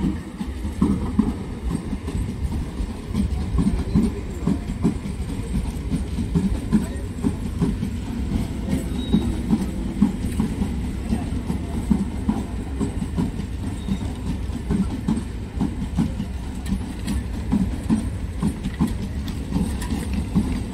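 Electric multiple-unit suburban local train running past along the track: a steady low rumble with a continuous clatter of wheels knocking over the rail joints.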